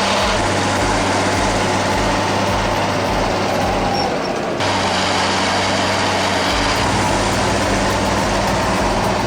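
Heavy diesel engine of an earth-moving machine running steadily, with a regular low pulsing. The sound changes abruptly about four and a half seconds in.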